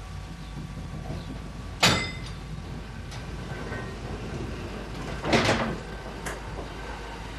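Metal clanks from a freight wagon's coupling gear being handled: one sharp, ringing clank about two seconds in, then a longer, rougher rattle about five seconds in and a small click just after, over a steady low rumble.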